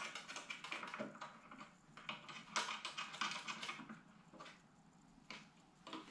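Faint, rapid light clicks and taps of small hardware being handled as a finderscope is seated in its bracket and worked with a screwdriver. The clicks thin out to a few separate taps over the last two seconds.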